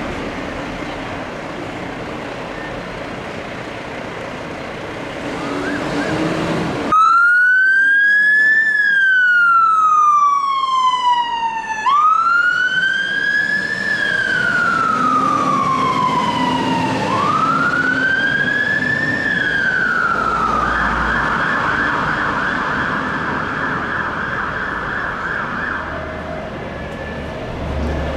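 Emergency vehicle siren over street traffic: about seven seconds in, the siren starts wailing in slow rises and falls roughly every five seconds, then switches to a fast yelp for several seconds before fading.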